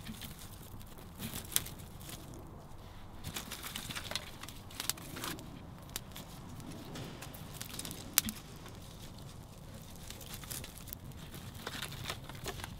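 Small twig campfire crackling and popping as the kindling catches, with scattered sharp snaps, the loudest about eight seconds in, and twigs rustling as they are laid on the fire.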